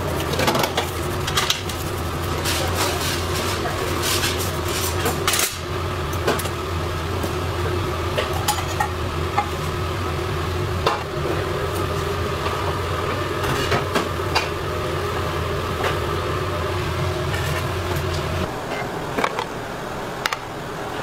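Large kitchen knife cutting a sheet of roasted beef on a plastic cutting board: irregular sharp taps and clicks of the blade against the board over a steady low hum.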